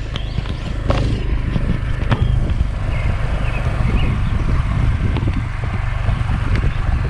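Motorcycle engine running steadily at low speed on a rough dirt track, with a low rumble and a couple of short knocks about one and two seconds in.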